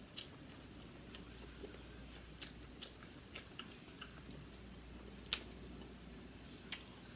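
Faint close-up chewing of seafood, with scattered sharp clicks and crackles, the loudest a little past five seconds in.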